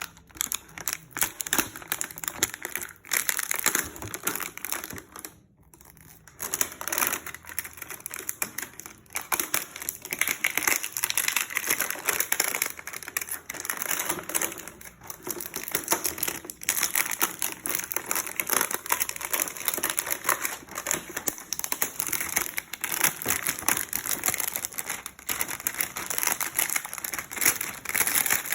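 Plastic packaging crinkling and rustling as it is handled and torn open, with many small clicks and taps, and a brief pause about five seconds in.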